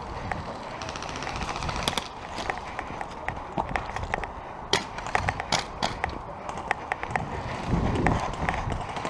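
Irregular sharp clicks and cracks of airsoft guns firing and BBs striking hard surfaces, thickest in the middle of the stretch, over the thud of running footsteps and gear movement.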